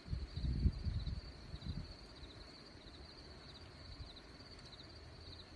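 Insects, likely crickets, chirping in a faint, steady high trill. Low rumbling bumps fill the first two seconds.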